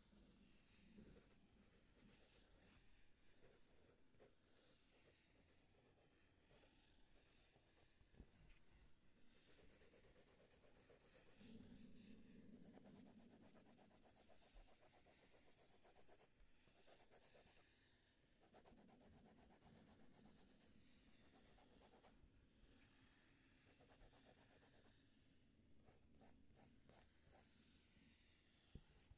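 Faint scratching and rubbing of drawing strokes on a surface, in quick stroke after stroke with short pauses between spells.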